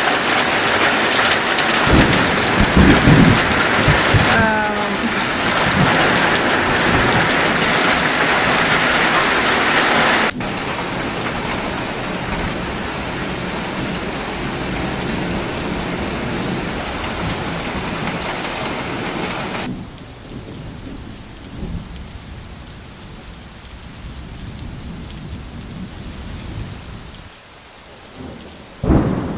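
Heavy rain hissing steadily, with low rolls of thunder a few seconds in and again near the end. The rain drops suddenly to a quieter level twice, about ten and twenty seconds in.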